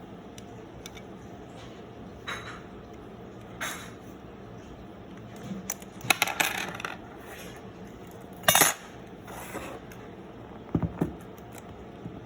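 Scattered metallic clicks and clinks of a Canon F-1 SLR body being handled as its viewfinder prism is worked off: a few single clicks, a rattling cluster about halfway, the loudest knock about two-thirds in, and two duller thumps near the end.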